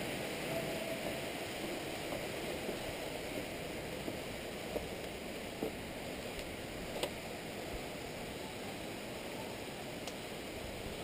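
A steady rushing noise with a few sharp taps about five and seven seconds in.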